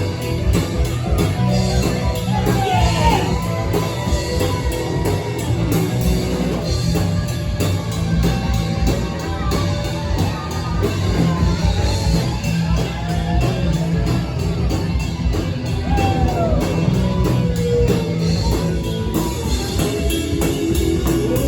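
Live rock band playing loudly with a steady beat, with sung and shouted vocal lines over it.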